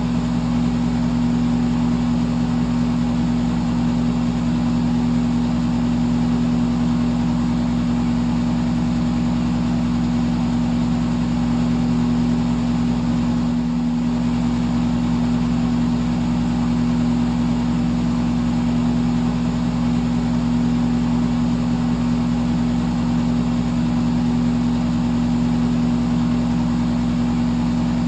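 Electric fan running steadily: a constant low motor hum under an even rush of moving air, with a momentary dip about halfway through.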